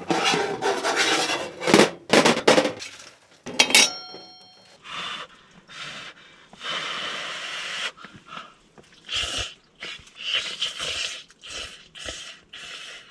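Hooked metal poker scraping on the steel top of a small wood-burning stove, with one ringing metal clink about four seconds in. Then a run of short scraping and rubbing sounds.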